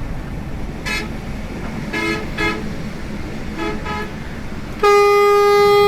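Vehicle horns honking in traffic: four short toots, then one long, loud steady blast starting near the end, over the low rumble of a bus engine and road noise.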